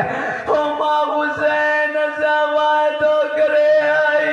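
A man's amplified voice chanting a mournful majlis lament in long, steady held notes. A lower steady tone joins near the end.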